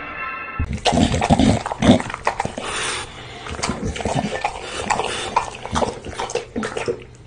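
English bulldog eating noodles from a bowl right at a microphone: close, wet chewing and slurping with many sharp smacks and clicks. A short stretch of music cuts off in the first second.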